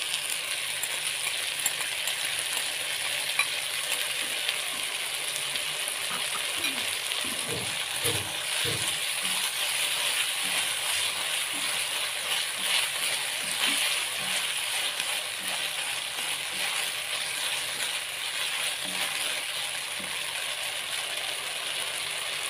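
Sauce and vegetables sizzling steadily in a hot non-stick wok while a spatula stirs them, with faint scraping and tapping of the spatula against the pan.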